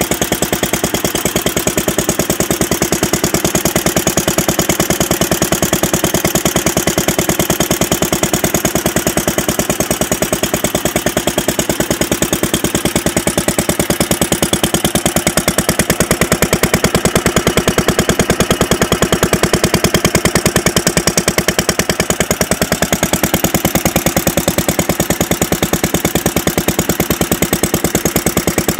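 Single-cylinder Fuller and Johnson engine of a circa-1925 Western Electric farm light plant running steadily, with an even, rapid firing beat. The generator is not yet charging, so the engine runs without an electrical load.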